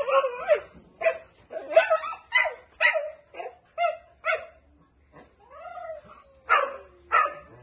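Dogs yipping and whining excitedly: short, high, pitched barks about twice a second, with a longer drawn-out whine a little past the middle.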